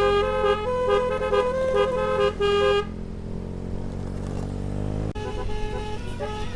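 Basuri telolet horn playing a quick tune of changing notes for about three seconds, then stopping, over an engine running underneath. The engine's note then rises slowly until a sudden break, after which a softer run of horn notes starts near the end.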